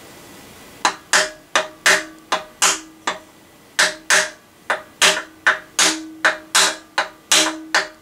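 Hammer tapping a wooden block to drive a friction-fit headset cup into the head tube of a 7005 aluminium mountain bike frame. About eighteen sharp taps, roughly two a second, start about a second in, with a faint ring hanging between them.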